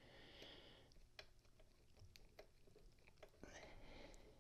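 Near silence, with a few faint, scattered clicks from fingers handling a small part on a circuit board.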